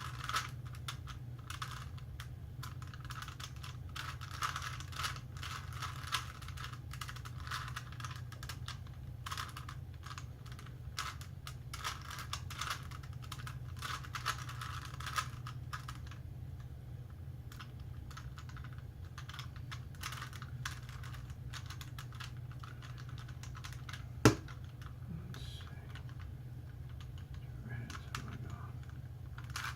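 Rubik's cube being twisted by hand: quick runs of small plastic clicks as the layers turn, thinning out in the second half, with one sharper knock late on, over a steady low hum.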